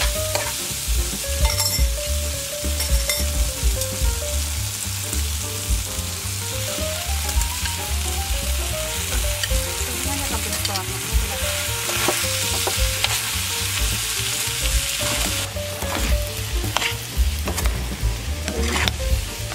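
Food frying and sizzling in a hot pan, a steady hiss with a few sharp clicks.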